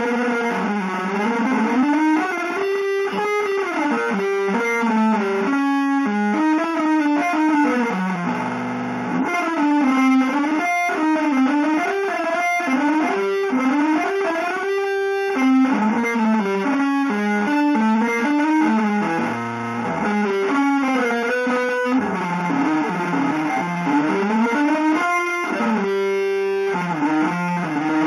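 Electric guitar playing a fast, continuous improvised line in a free-jazz, avant-garde style, without any tune, its notes sliding and bending in pitch.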